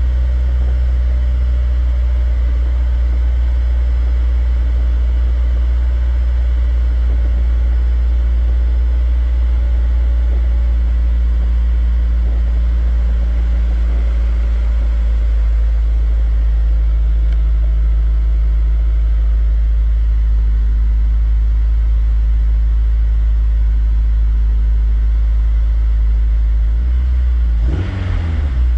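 Honda S2000's four-cylinder engine idling steadily while warming up, the oil still cold enough for the gauge to read high pressure. The sound shifts briefly near the end.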